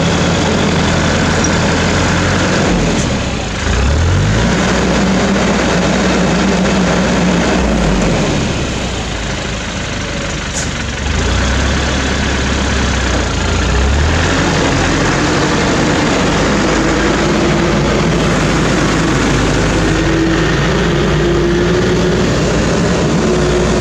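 Diesel engine of an Escorts F17 pick-and-carry crane running steadily while it hoists and swings a heavy cable drum, its engine speed shifting a few times as the lift is worked, with a faint rising tone near the end.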